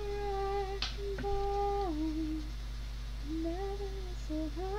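A young woman's voice humming a slow wordless tune in long held notes that step down in pitch and back up, over a steady low background hum.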